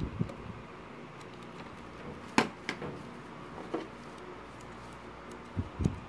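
Tools being handled on a workbench: a sharp knock about two seconds in, a couple of lighter clicks, and two soft thumps near the end, over a steady faint hum.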